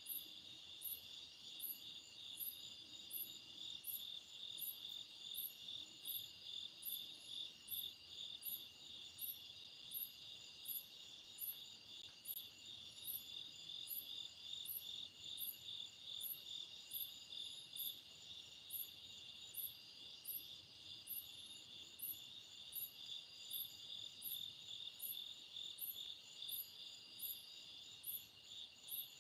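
Night insect chorus: crickets trilling steadily, with a second, higher chirp repeating at an even pace a little faster than once a second.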